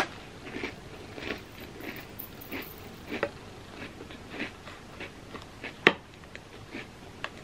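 Close-up mouth sounds of a person chewing Oreo cookies dipped in a thick brownie batter dip, a crunchy chew repeating a little under twice a second. A single sharp click about six seconds in is the loudest sound.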